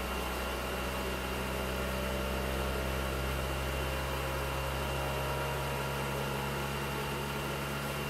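UltiMaker Sketch Sprint 3D printer running its automatic vibration-test calibration, its motors shaking the print head and gantry: a steady mechanical hum made of several low tones with a faint high whine above. This is a normal calibration step, not a fault.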